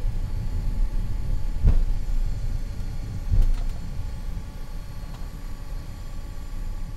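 Avro RJ100 taxiing after landing, its four turbofans at idle: a steady low rumble with a faint steady whine above it and two dull thumps, about 1.7 and 3.4 seconds in. The rumble slowly eases.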